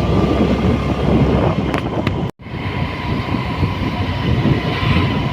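Steady rumble and rattle of a moving vehicle, with a brief total dropout a little over two seconds in.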